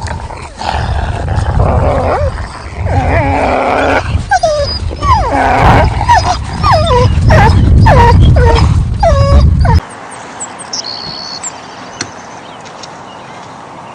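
Wolves yelping and whining over a low rumble, many short cries bending up and down in pitch in quick succession. The sound cuts off suddenly near the end, leaving a quieter hiss with a few high chirps.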